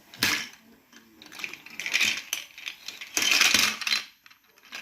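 Clattering and rattling of small hard objects in several irregular bursts, the longest and loudest about three seconds in.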